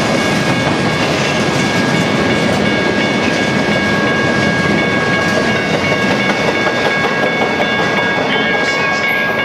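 Empty double-stack well cars of a freight train rolling past close by: continuous wheel-and-rail noise, with a steady high-pitched tone ringing over it.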